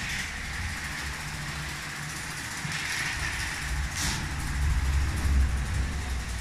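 Lego 12V electric train running on plastic track: a steady low motor-and-wheel rumble with a hiss above it, a few brief swishes, and the loudest stretch about five seconds in.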